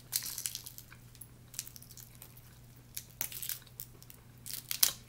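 Boiled snow crab leg shells being cracked and pulled apart by hand, crackling and snapping in several short bursts, the loudest near the end.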